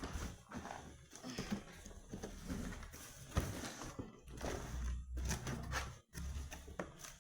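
A cardboard box of cookware being opened and its packaging handled: irregular scrapes, rustles and light knocks, with a few dull thumps about five seconds in.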